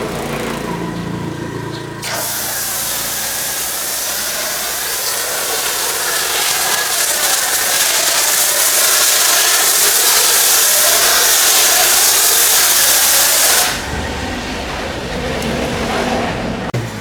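High-pressure washer jet spraying: a loud, even hiss that starts abruptly about two seconds in and cuts off suddenly near the end, with a low mechanical rumble before and after it.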